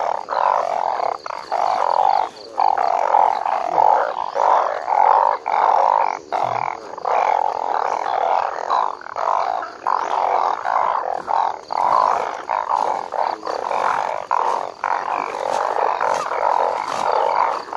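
Chorus of many narrow-mouthed frogs (อึ่ง) calling together: a dense, unbroken din of croaks with only brief dips.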